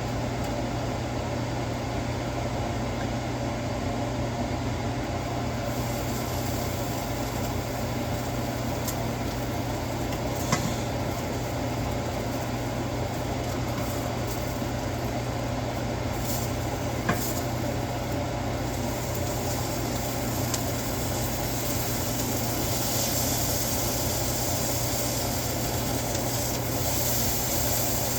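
Birria tacos frying in a pan with a steady sizzle that thickens in the second half, over a constant low hum, with a couple of light clicks.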